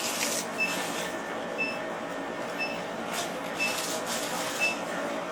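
Medical equipment in the operating theatre beeping steadily, one short high-pitched beep about every second at an unchanging pitch, over a continuous machine hiss.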